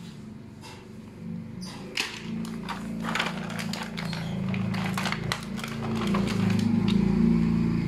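Clear plastic bag crinkling and rustling as a plastic toy is handled and pushed into it, in many quick irregular crackles. A low steady hum runs underneath and grows louder near the end.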